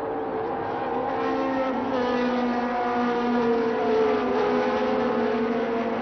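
A pack of 1976 Formula One cars running at high revs, several engine notes overlapping and wavering in pitch, growing louder over the first few seconds as the cars pass.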